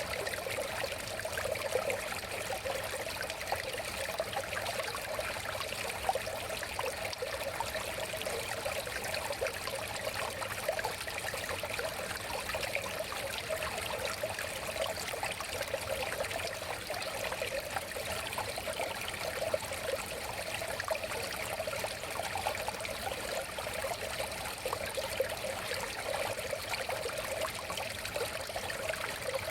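River water flowing and trickling steadily over stones, a continuous even rush of water with fine ripples.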